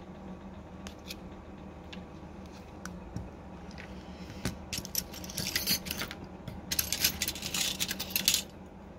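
Small metal parts clattering and jingling in two quick bursts, the first about four and a half seconds in and the second near the end, after a few light clicks.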